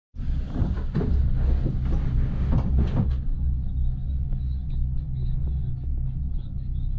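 Gondola cabin riding along its cable, heard from inside the cabin: a steady low rumble, with louder rattling and knocking over the first three seconds that then settles to a quieter rumble with a few faint clicks.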